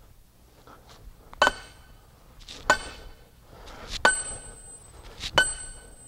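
Small sledgehammer striking the top of a steel bar to drive a pilot hole into the soil: four ringing metallic clanks about a second and a quarter apart.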